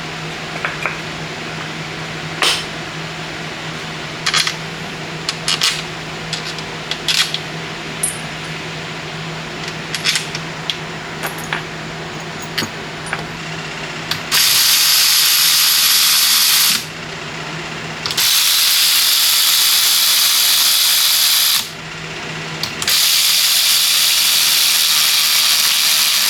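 Light metallic clinks and taps of parts and bolts being handled. From about halfway through, a compressed-air tool runs in three bursts of a few seconds each, with a loud, steady hiss.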